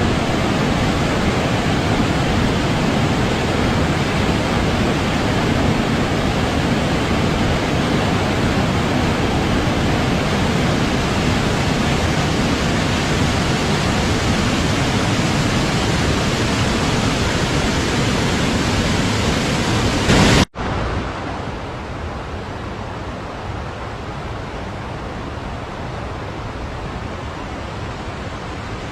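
Waterfall: falling water rushing in a loud, steady, even wash. About twenty seconds in it breaks off sharply and comes back quieter and duller, with less hiss.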